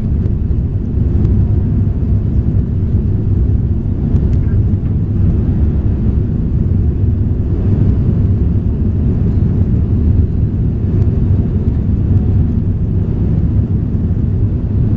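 Steady low rumble of an Airbus A340-300's four CFM56 engines and airflow, heard inside the passenger cabin during the climb after takeoff.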